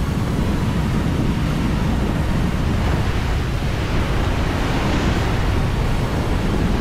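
Heavy surf breaking and washing over a rocky shore, with wind buffeting the microphone as a steady low rumble.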